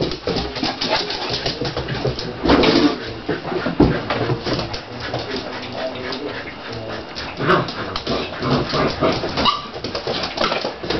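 Siberian husky puppies whimpering and yapping in rough play with an adult husky, a busy run of short squeals and yips, loudest around three to four seconds in.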